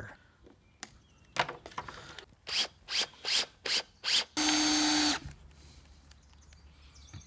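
Cordless drill/driver driving screws: a few clicks, then about five short bursts of the drill a little under half a second apart, then one steady run of just under a second before it stops.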